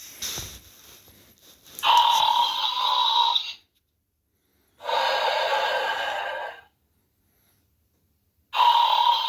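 Animated toy sleeping dog playing its snoring sound: three noisy snore breaths, each nearly two seconds long, about every three seconds, with silence between. A few faint clicks and rustles come before the first breath.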